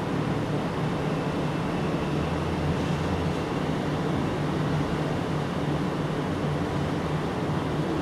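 Steady low mechanical hum over an even background hiss, unchanging throughout.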